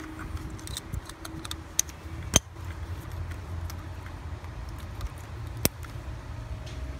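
Plastic electrical connectors and wiring harness being handled and clipped into place in a car engine bay: scattered light clicks and rattles, with a sharp click about two and a half seconds in and another near six seconds, over a steady low rumble.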